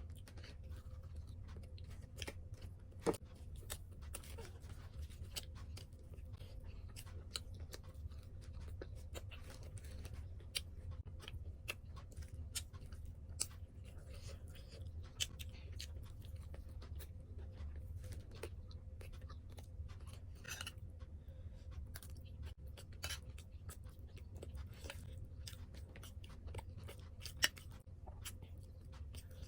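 Close-up chewing and mouth sounds of a person eating, with many small irregular clicks and smacks, over a steady low hum.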